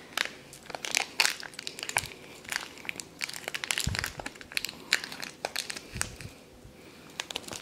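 Thin LDPE plastic blind-bag wrapper crinkling as fingers pull it open and unwrap a small toy figure, in many irregular sharp crackles.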